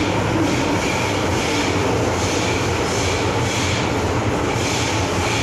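MTR Island Line M-Train electric multiple unit running at speed, heard from on board: a steady rumble of wheels on rail with a low hum and a hiss that swells and fades about twice a second.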